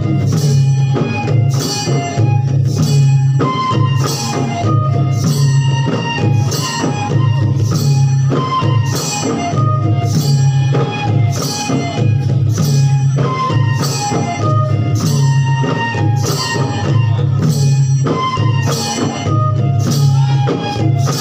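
Live Bodo folk dance music: long barrel drums (kham) beating a steady rhythm, small cymbals struck on the beat a little more than once a second, and a melody line wandering above them.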